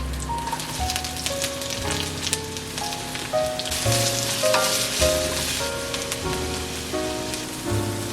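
Food sizzling and crackling in a hot pan, strongest about halfway through, over background music with a light stepping melody.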